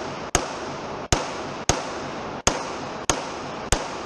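Six pistol shots from a 9mm Glock 34 Gen 5, fired at an even pace about every two-thirds of a second. Each shot is followed by a brief ringing echo.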